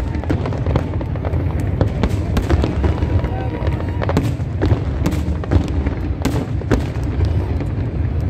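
Aerial fireworks shells bursting in a dense display: many sharp bangs and crackles in quick, irregular succession over a continuous low rumble.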